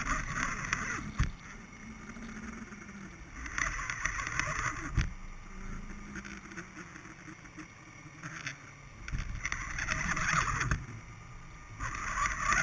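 Muffled underwater water noise heard through a GoPro's waterproof housing on a baited fishing line. A low rumble runs throughout, with a surge of rushing water every few seconds and a couple of sharp knocks.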